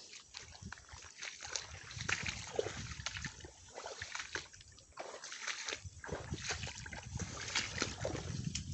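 Footsteps wading through shallow muddy water and wet grass, in uneven steps.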